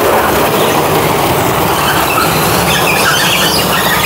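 Automatic car wash running: big spinning cloth brushes slapping against the pickup and water spraying, a loud, steady wash of noise.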